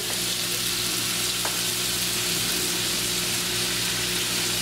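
Italian sausages with sliced bell peppers and onions sizzling steadily in a frying pan, over a steady low hum.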